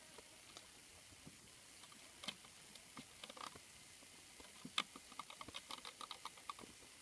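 Faint clicks and taps of hands handling a PVC pipe frame and tying string around it, with a quick run of light ticks about five seconds in.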